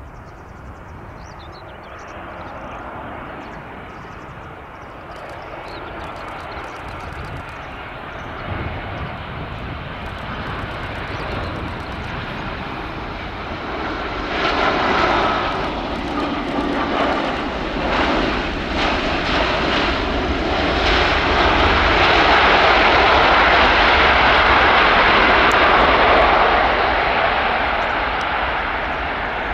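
Airbus A320 jet airliner landing: a steady engine hum on approach, then louder engine noise from touchdown about halfway through. The noise is at its loudest a few seconds before the end as the jet slows on the runway, then begins to fade.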